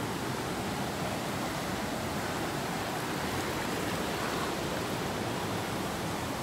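Creek running high after rain, rushing fast over rock slabs and small drops: a steady rush of water.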